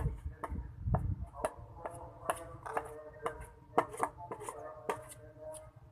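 A spoon clicking and scraping against a dish while a thick, clumping flour mixture is stirred: irregular sharp clicks, about two or three a second.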